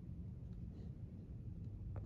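Quiet room tone: a steady low rumble with faint rustles as a plastic smoke alarm is turned over in the hand, and a short click near the end.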